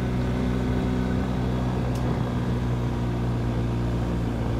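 BMW R1250GS Adventure's boxer-twin engine running steadily as the motorcycle rides a gravel trail at about 50 km/h, under a steady rush of road noise. A single sharp click about two seconds in.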